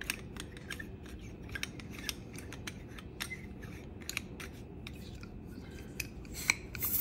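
Stainless steel meat injector being handled and screwed together: a run of small metallic clicks and scrapes from its parts, with a sharper click near the end.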